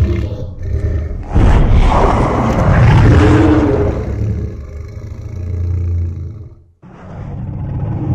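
Designed giant-monster roar sound effect for Zilla. A long, loud roar starts about a second in and fades away over several seconds. After a brief break near the end, a low rumble begins.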